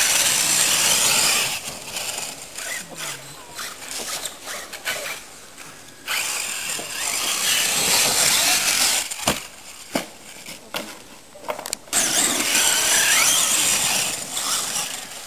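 Electric radio-controlled monster truck driving hard over dirt and dry leaves: a high motor whine with tyres scrabbling, in three loud spells with quieter stretches between, and a few sharp knocks near the middle.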